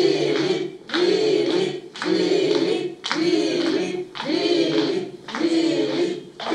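A group of voices chanting "Billy!" together over and over, about once a second, cheering on a runner.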